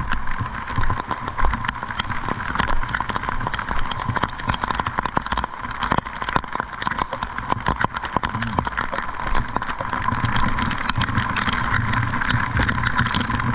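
A vehicle engine running steadily, with a dense scatter of sharp ticks over it throughout.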